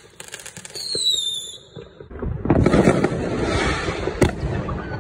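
Fireworks going off: a falling whistle in the first couple of seconds, then from about two seconds in a dense crackling barrage, with one sharp bang near the end.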